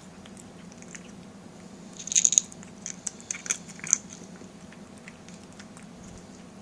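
Cat crunching dry kibble, with a quick cluster of crunches about two seconds in and a few more between three and four seconds.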